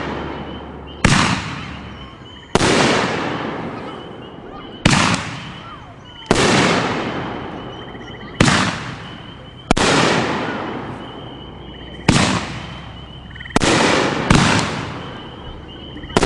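A 500-gram, 10-shot consumer firework cake firing its shots one after another, about one every one and a half to two seconds. Each shot is a sharp bang followed by a rush of sound that fades away, from the mine and peony effects.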